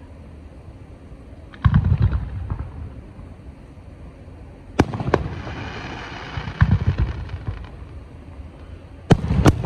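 Fireworks display: aerial shells bursting with deep booms every few seconds. A sharp crack about five seconds in is followed by a couple of seconds of crackling, and two quick bangs come near the end.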